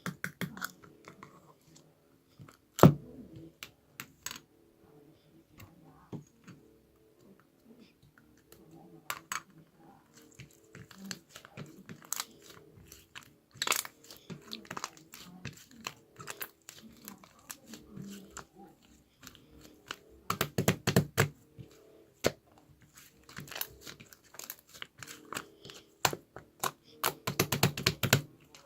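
Irregular crinkling, crunching and clicking handling noises, thickest in two flurries in the later part, over a faint murmur of voices.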